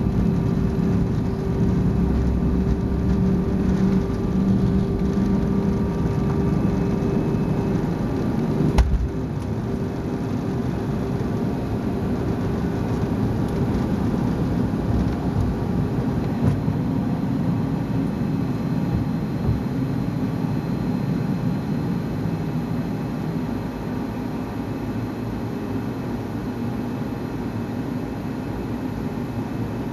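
Inside the cabin of a Fokker 100 on its takeoff run: the steady noise of its two rear-mounted Rolls-Royce Tay turbofans at takeoff power with a steady hum, over the low rumble of the wheels on the runway. About nine seconds in there is a thump and the low rumble drops away as the jet lifts off, and the engine noise goes on through the climb, easing a little near the end.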